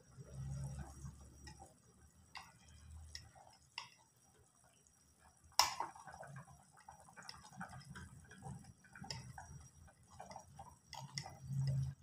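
A metal spoon tapping and scraping inside a plastic jar of ground black pepper, in scattered small clicks, with one sharp click about halfway through. Low thuds of the jar being handled come near the start and near the end.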